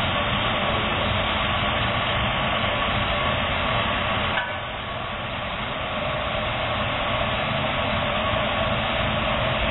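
Sawmill band saw running and cutting a teak log: a steady loud machine noise with a thin whine. About four and a half seconds in the whine drops to a lower pitch and the noise eases off slightly.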